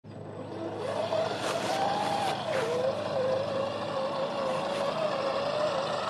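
Electric drive motor and gearbox of a remote-control converted toy dump truck whining as it drives. The pitch rises a little just before two seconds in, then drops back and holds steady, with a few faint clicks early on.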